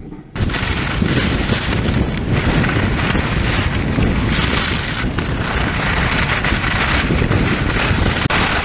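Wind buffeting a handheld camera's microphone as a skier runs downhill, mixed with the skis running over snow. It starts abruptly just after the beginning and stays loud and steady.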